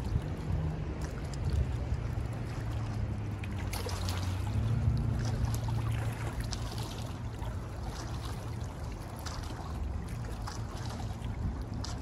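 River water lapping against a rocky bank, with a low engine drone in the background that swells about halfway through.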